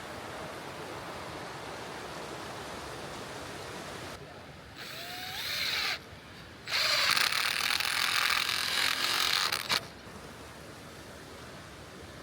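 Handheld power tool running in two bursts: a short one about five seconds in, then a louder one lasting about three seconds, over the steady rush of a brook.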